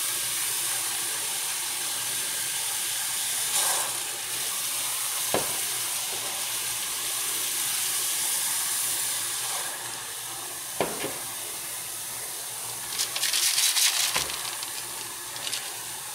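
Air-conditioner cleaning acid fizzing as it eats into an aluminium drink can in a glass: a steady hiss, with two soft clicks and a louder crackling patch near the end.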